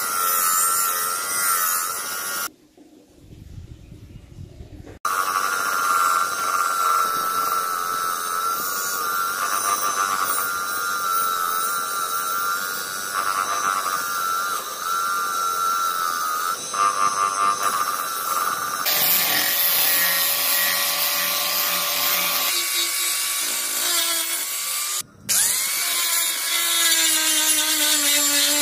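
Bench grinder running steadily, its spinning wheel scraping rust off the steel blade of a cleaver pressed against it, with a brief near-quiet gap about three seconds in. Near the end it cuts off and a hand-held angle grinder spins up and grinds the blade's flat face.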